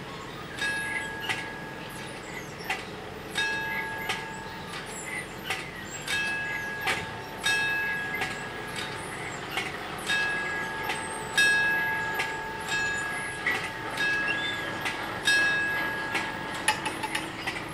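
The two warning bells of an Italian level crossing ringing repeatedly, sharp strikes in an uneven pattern as the two bells overlap, each strike ringing on. They signal that the crossing is closing, with the barriers lowering for an approaching train.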